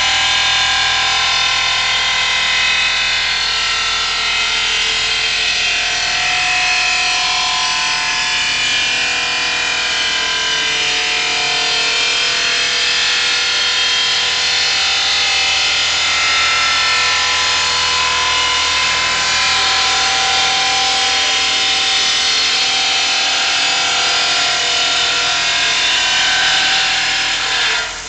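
The spindle of an OMAG Mill5 five-axis CNC machine is running a milling tool through marble, roughing out vases. It makes a loud, steady cutting noise with several tones that waver up and down.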